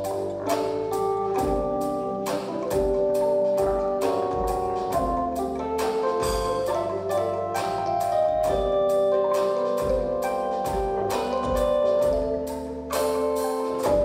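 Live ensemble music led by a calung renteng, a Sundanese row of tuned bamboo tubes struck with a beater, playing a pattern of wooden, ringing notes over electric bass and a steady percussion beat.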